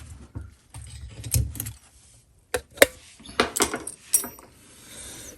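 Handling of small metal faucet parts: a low rumble of handling, then several sharp metallic clicks and clinks, one with a short ringing tone about four seconds in.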